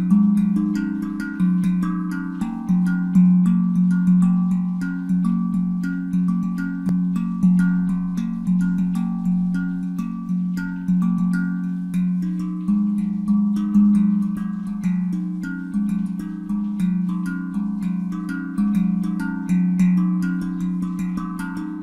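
Steel handpan tuned to F Phrygian at A=432 Hz, played by hand in a steady, Afro-inspired rhythm: deep notes struck again and again, each ringing and fading, with quick light finger taps between them.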